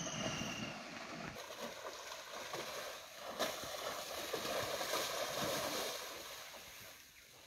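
Muddy river water sloshing and splashing as greater one-horned rhinoceroses wade out of it, dying away near the end as they climb onto the bank. There is one sharp click a little over three seconds in.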